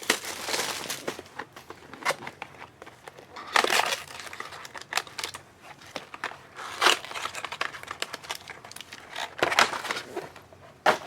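Trading card pack wrappers being crinkled and torn open by hand, in irregular bursts of rustling and tearing.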